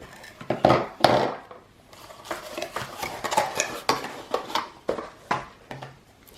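Boxes and packaging being handled: a string of knocks, taps and rustles, loudest at about a second in, then lighter taps and clicks.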